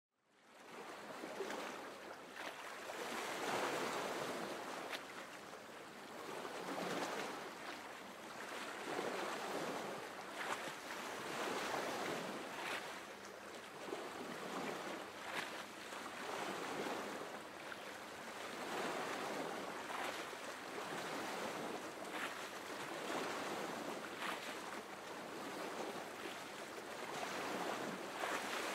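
Sea surf washing in and out, the noise swelling and easing every two to three seconds. It fades in over the first second.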